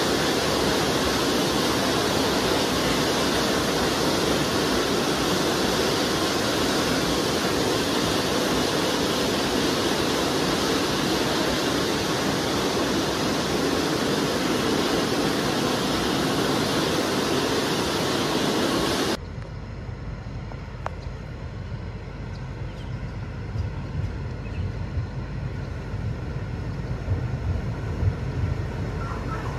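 A steady, loud rushing noise as a rake of empty steel cane bins rolls away along the narrow-gauge cane tramway. About two-thirds through it cuts off abruptly to a quieter low rumble that grows toward the end as a diesel cane locomotive approaches.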